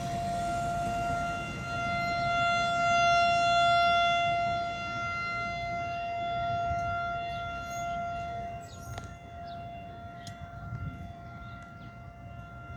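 Outdoor tornado warning siren sounding one steady tone for its scheduled test. It swells louder a few seconds in, then fades in the second half.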